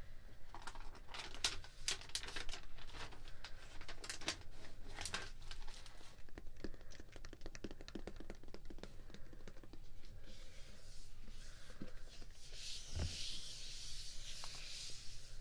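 Close-miked ASMR tapping and scratching: quick, irregular sharp taps and scrapes for the first half, then a longer rustling crinkle of packaging over the last few seconds.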